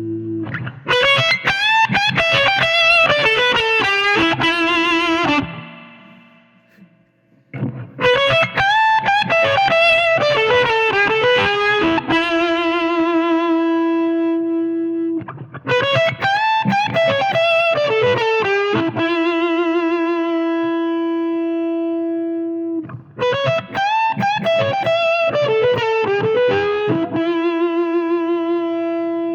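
Electric guitar played through a Cardian Effector Vitamin C fuzz pedal: quick melodic lead runs in four phrases, each ending on a long sustained note with vibrato. The sound dies away briefly about six seconds in before the next phrase.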